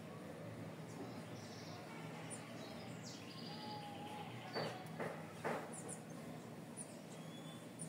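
Quiet outdoor ambience: birds chirping now and then over a faint steady hum, with a few short noisy sounds a little past halfway.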